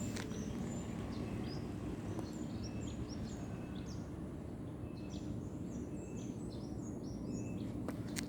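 Small birds chirping in many quick, high notes over a steady low background rumble.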